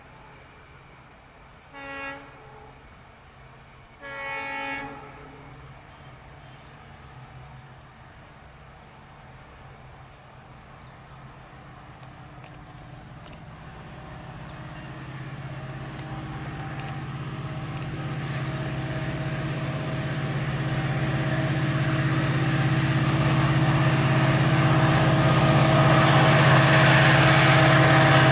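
WDG4 diesel locomotive sounding its horn twice, a short blast about two seconds in and a longer one about four seconds in. Then its EMD two-stroke engine grows steadily louder as it approaches, hauling a passenger train.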